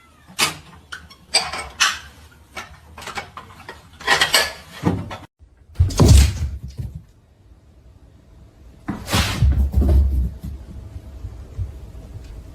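A run of knocks and clatter, then heavier thumps and rumbling.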